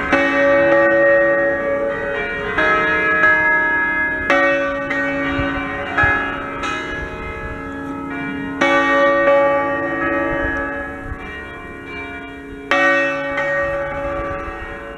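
Peal of six 1928 Fratelli Ottolina bronze church bells in D-flat, all swinging together in a full 'distesa' ring. Strikes come at uneven intervals and overlap, each ringing on and slowly fading under the next.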